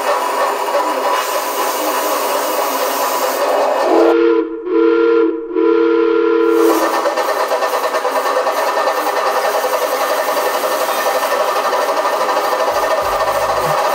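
Steam locomotive sound: a steady hiss of steam, and about four seconds in a whistle sounding a chord of several notes in three short blasts.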